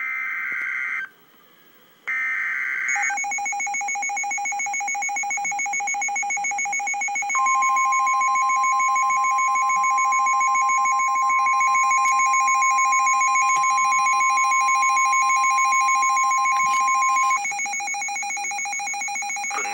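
Emergency Alert System severe thunderstorm warning tones: two short screeching digital header bursts, then a rapidly pulsing two-pitch alarm beep. About seven seconds in, a loud steady single-pitched warning tone joins the beep for about ten seconds and then cuts off.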